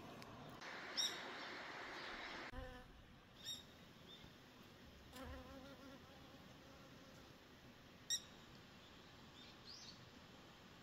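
Faint buzzing of a flying insect passing by, its drone wavering in pitch, with three short high chirps about one, three and a half, and eight seconds in.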